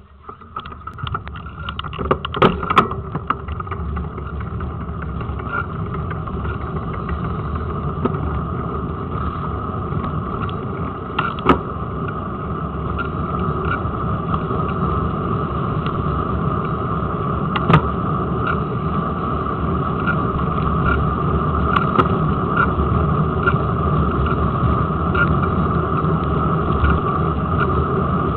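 Bicycle riding on tarmac, heard from a camera clamped to the front forks: a steady rumble of tyre and road vibration with a steady hum, and a few sharp knocks as the front wheel hits bumps.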